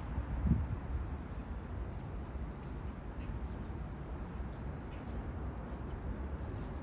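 Outdoor ambience: a steady low rumble with a soft thump about half a second in and a few faint, scattered high ticks.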